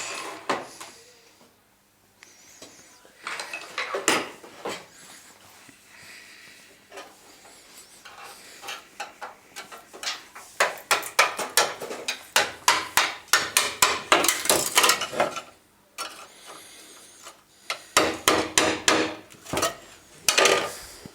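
Hammer striking sheet steel: scattered blows, then quick runs of taps several a second with short pauses between them, as a small repair panel is shaped.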